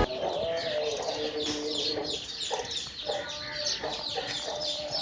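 Chickens clucking in a farmyard, with a dense chorus of small birds chirping quick falling chirps throughout.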